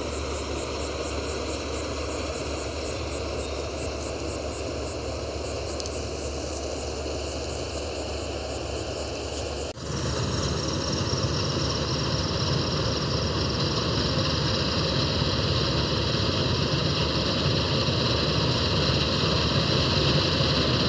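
Combine harvester running steadily while cutting a standing crop, a continuous engine and machinery drone. About halfway through it becomes abruptly louder and closer.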